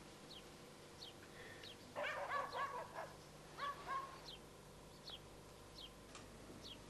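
Faint bird chirping: short falling chirps repeating every half second or so. A brief whining sound comes about two seconds in and again near four seconds.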